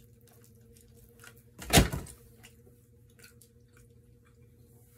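Close-miked chewing of crispy fried chicken wings: many small wet mouth clicks and smacks, with one loud sharp crunch a little under two seconds in.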